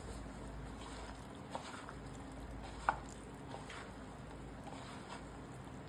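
Faint wet squishing and stirring of corn kernels being mixed with cornflour, maida and a little water in a bowl, with a few small clicks, the sharpest about three seconds in.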